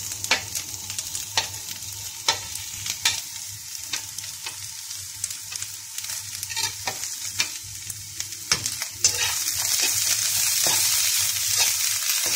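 Carrots, peas and sliced green capsicum frying in oil in a nonstick wok, with a steady sizzle. A dozen or so sharp taps and scrapes come as the capsicum is pushed in off a plate with a knife and the vegetables are stirred, and the sizzle gets louder about nine seconds in.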